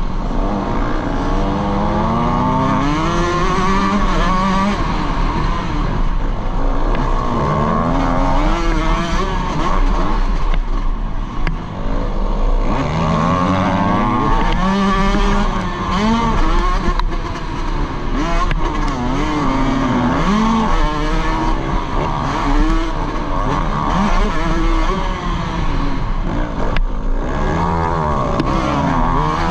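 Dirt bike engine on a motocross track, revving up and dropping back over and over as the rider accelerates, shifts and backs off through the turns. A steady low rumble of wind on the helmet-mounted microphone runs underneath.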